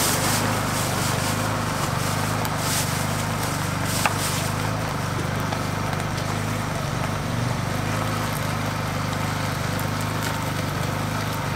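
Beaten eggs sizzling on a flat-top griddle over a steady low machine hum, with one sharp click about four seconds in.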